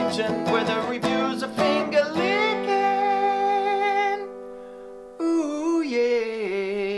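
Music: strummed guitar chords for about two seconds, then long held, slightly wavering notes to the end.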